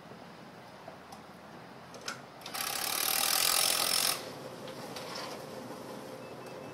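Seamless-gutter roll-forming machine running, drawing white metal coil stock through its rollers and pushing out formed gutter, with a mechanical clatter and light clicks. About two and a half seconds in, a louder rushing noise lasts under two seconds before the steadier machine sound returns.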